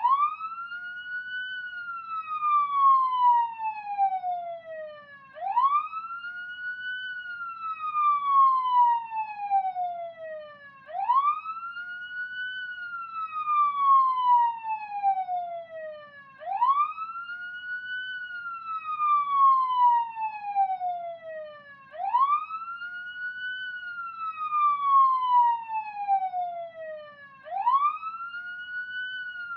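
Police siren sounding a slow wail. Each cycle climbs quickly in pitch for about a second and a half, then falls slowly for about four seconds, repeating about every five and a half seconds.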